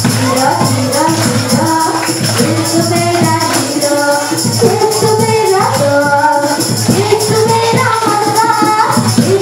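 A song playing: a sung melody over a steady beat.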